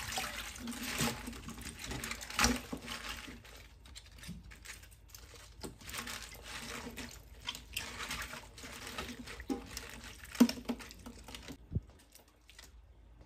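Hands swishing and rubbing bok choy leaves in a stainless steel bowl of water, with irregular splashes and sloshing, the loudest about 2.5 and 10.5 seconds in. It turns quieter near the end.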